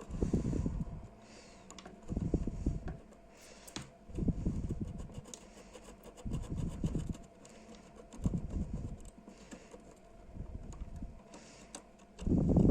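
Muffled bumps and rubbing on a workbench, coming in short bursts about every two seconds with faint clicks between them: handling noise from working a soldering iron and solder wick over a small circuit board.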